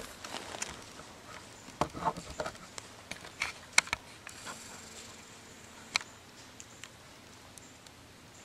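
Faint scattered rustles and small clicks, with a cluster about two seconds in and a few sharp ticks between three and four seconds, fading to quiet woodland background after about six seconds.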